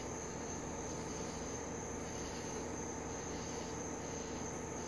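Steady low electrical hum and hiss with a faint, continuous high-pitched whine; nothing starts or stops.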